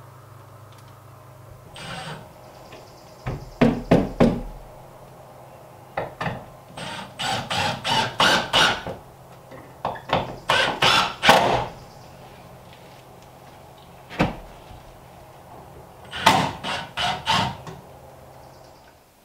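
Reflective foil insulation being worked into the wall framing between wooden studs: several bursts of rustling and sharp knocks, with quiet gaps between them.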